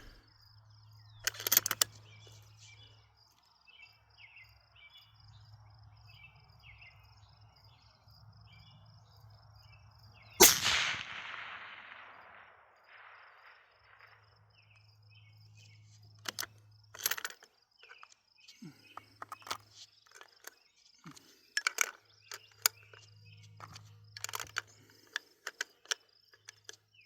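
A single shot from a Barrett MRAD bolt-action rifle about ten seconds in, its report echoing away over a few seconds. Insects chirp steadily throughout, and scattered small clicks and knocks follow the shot.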